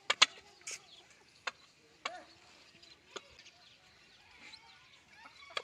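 Peahen giving short, sharp clucks: a loud double cluck just after the start, then single clucks spaced a second or so apart. Faint chirping of small birds runs underneath.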